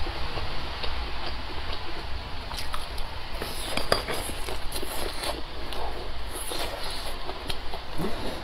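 A person chewing a mouthful of grilled sausage: a run of short, irregular wet clicks and smacks from the mouth, over a steady low hum.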